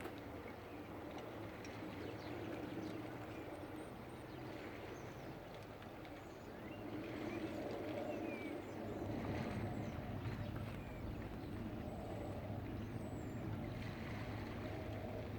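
Waterside ambience among moored sailing boats: a steady wash of water and wind with a low rumble, and a few faint, short, high chirps.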